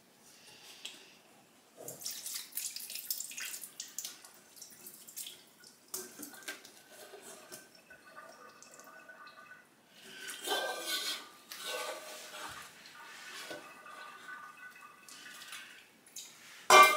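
Water splashing and dripping in a stainless steel kitchen sink as a small metal bowl is handled and rinsed in it, with a sharp clatter just before the end.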